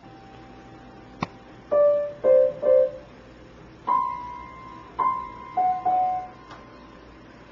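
Piano keys pressed one at a time by a cat: about seven separate notes at uneven intervals with no tune, each ringing on after it is struck. A sharp click comes just before the first note.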